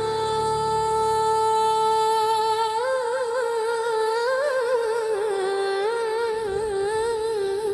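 Female voice singing a wordless, hummed line. She holds one long steady note, then breaks into a wavering, ornamented Middle Eastern-style melody with quick turns, over faint backing.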